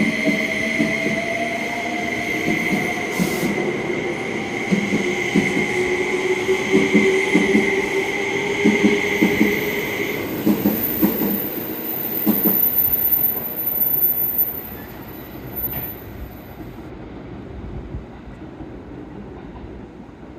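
E261-series Saphir Odoriko limited express pulling out of the station. A steady high wheel squeal and other squealing tones go with a clatter of wheels over rail joints, and it all fades away after about fifteen seconds.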